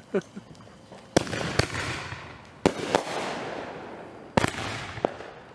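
Consumer firework artillery shells going off: a short launch thump, then a string of sharp bangs, some in quick pairs, each trailing off in a crackling hiss.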